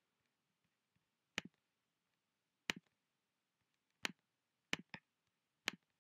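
Computer mouse button clicks: about five short, sharp clicks a second or so apart, two of them close together near the end, with near silence between.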